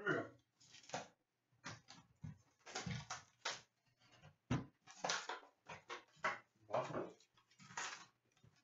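An Upper Deck hockey card hobby box being handled and opened by hand: irregular scrapes, rustles and taps of cardboard and card packs, with a sharp click about four and a half seconds in.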